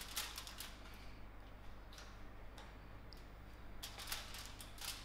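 Faint scattered clicks and light rustling of a foil-covered baking dish being handled and carried to the oven, with a small cluster of handling clicks near the end as it reaches the oven, over a steady low room hum.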